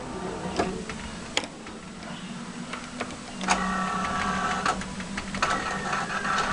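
Claw machine at work: its small motors whirring as the gantry moves and the claw drops, with several sharp clicks along the way and a steadier motor hum with a slowly falling whine from about halfway through.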